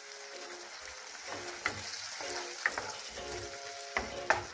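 Hot water poured into a pan of frying peppers, onions and tomato sauce, sizzling and hissing steadily. A wooden spatula stirring and scraping the nonstick pan gives several sharp clacks.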